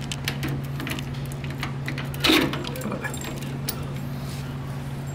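A bunch of keys jangling and clinking as a hand sorts through them for the vending machine's lock key, with one louder clack about two seconds in. A steady low hum runs underneath.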